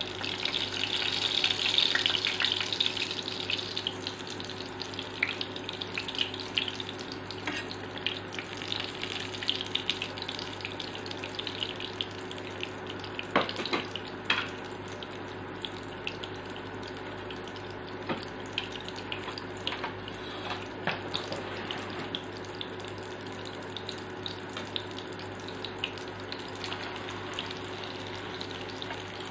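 Egg-battered eggplant frying in hot oil in a non-stick pan: a loud burst of sizzling for the first few seconds as it goes into the oil, settling into a steady sizzle with scattered sharp pops of spattering oil.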